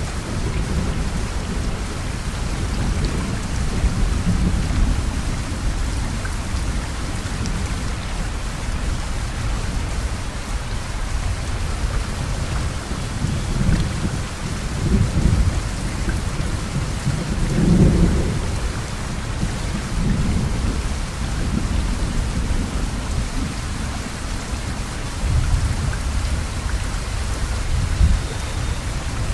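Heavy rain pouring steadily, with low rumbles swelling and fading several times, the strongest about eighteen seconds in.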